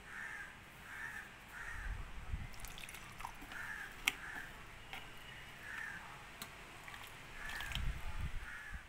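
A bird calling over and over in short harsh calls, about one a second, over soft scraping and knocks of a plastic spatula in a steel mixer-grinder jar, with water poured into the jar near the end.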